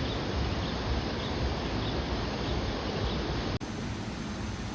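Steady rushing noise of Tegenungan Waterfall, with wind on the microphone. A brief dropout about three and a half seconds in, after which the rush is a little quieter.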